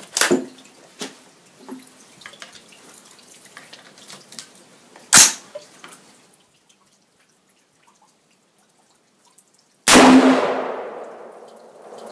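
Rifle shots at an outdoor range: a sharp crack about five seconds in, and a loud shot near the end that rings out with a long echo, with a fainter report or clank at the start and light handling clicks between.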